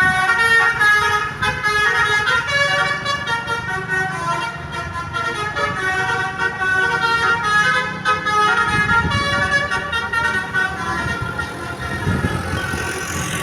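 Basuri multi-tone 'telolet' bus horn playing a tune of quickly changing notes, over a low vehicle rumble.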